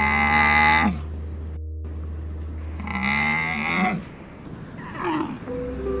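An animal calls twice, each call about a second long and dropping in pitch at its end, with a fainter third call near the end, over soft background music.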